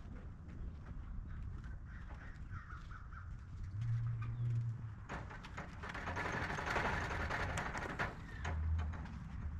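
Domestic pigeons cooing, with a louder rustling noise lasting about three seconds in the middle.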